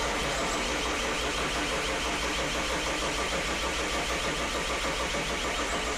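BMW M57 straight-six turbo-diesel cranking steadily on its starter motor without firing: the fuel pump is not connected and the fuel rail pressure sensor is unplugged, so the engine cannot start.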